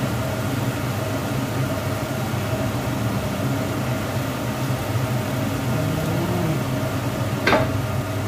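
Steady low mechanical hum, like a running motor or fan, with one short clatter about seven and a half seconds in.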